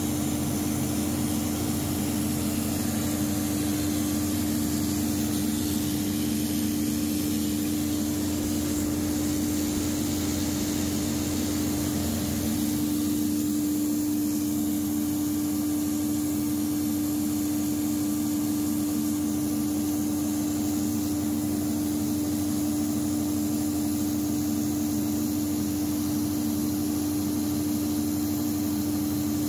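Large natural gas engine-generator running steadily under load while supplying about 300 kW to the grid: a constant engine drone with a strong, even hum.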